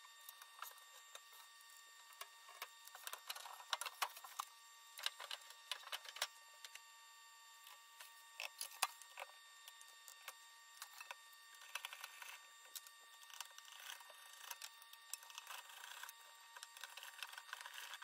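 Faint, irregular clicks, taps and scrapes of a screwdriver, screws and sheet-metal panels as a microwave oven's cabinet is unscrewed and taken apart.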